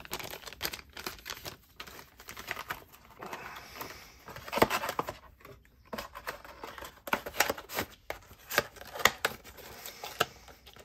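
Clear plastic bag crinkling and rustling as it is handled, then rustling and taps from a knife box being handled, with scattered sharp clicks throughout.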